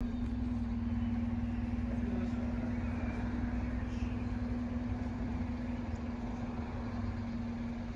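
A steady, low mechanical hum that holds one pitch throughout, over an even low rumble.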